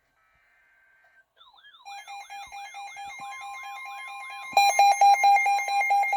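Emergency alert tones from several alerting devices sounding together. A warbling siren-like tone starts about a second and a half in and a steady tone joins it. About four and a half seconds in, a much louder, fast pulsing beep comes in over them.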